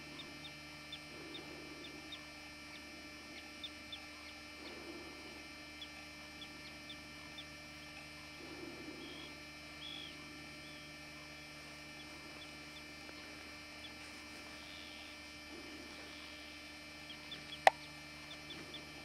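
Faint rustling and light ticking of an arctic fox nosing around a tent, over a steady electrical hum. A single sharp click comes near the end.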